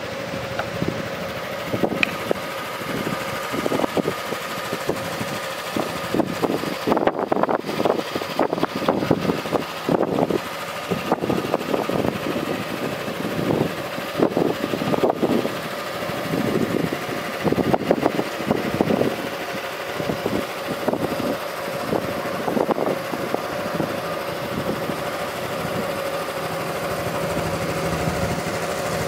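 Honda Forza 300 scooter's single-cylinder engine idling steadily, with irregular gusts of wind buffeting the microphone.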